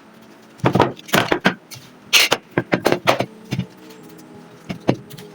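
A run of irregular sharp knocks and clatter, about a dozen strikes bunched in the first few seconds, over a steady low hum.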